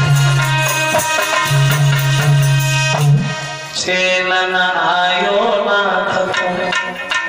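Live devotional folk music: an electronic keyboard sounding a steady low bass note and sustained chords, with percussion. About halfway through the bass note drops out and a man's voice comes in at the microphone over the keyboard.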